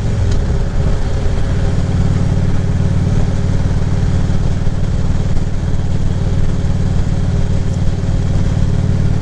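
Harley-Davidson Ultra Classic Limited's V-twin engine running on the road, with wind noise on a helmet microphone. The engine note drops in pitch in the first second, then holds steady.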